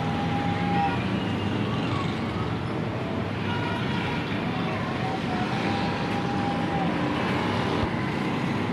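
Steady background noise with a few faint, held tones, around the start and again about six seconds in.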